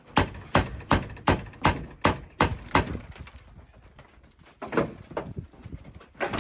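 A hammer driving a nail: about eight quick, evenly spaced strikes, roughly three a second, then a pause and a few looser knocks near the end.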